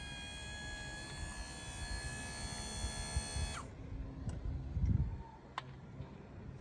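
Electric motor of a power wheelchair's iLevel scissor seat lift running with a steady whine as the seat moves. A little past halfway it stops suddenly with a slight drop in pitch. A short low bump and a few light clicks follow.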